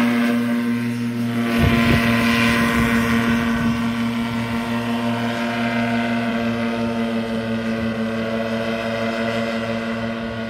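Paramotor trike's engine and propeller running at a steady pitch as it takes off and climbs away, gradually getting quieter with distance.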